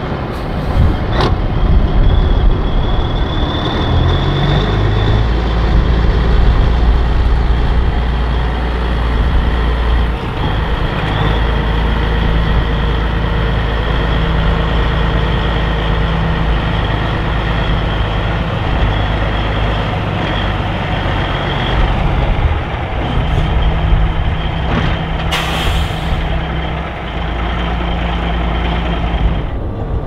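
1984 Peterbilt 362 cabover's diesel engine running as the truck is driven, with a steady high whine over the engine and its note shifting a few times. A short hiss of air comes about 25 seconds in.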